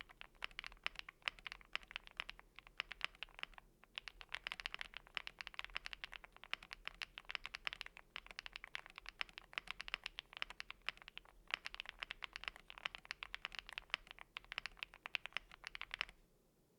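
Steady typing on a Chilkey ND75 mechanical keyboard with lubed Gateron Smoothie linear switches, a polycarbonate plate and PBT double-shot keycaps: a dense run of quick key clacks, with brief pauses twice, stopping just before the end.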